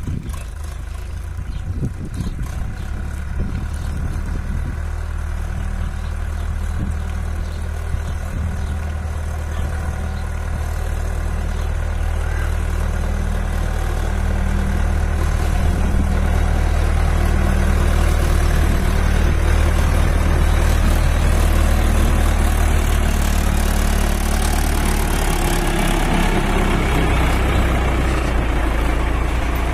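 Indo Farm 3055 NV 55 hp diesel tractor engine running under heavy load while hauling a fully loaded trolley. It grows louder about halfway through, and its pitch drops slightly near the end.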